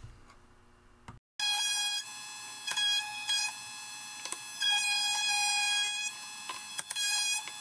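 Table-mounted router spinning a bearing-guided roundover bit with a steady high whine, starting about a second in; it grows louder several times as the bit cuts into the edge of an alder board.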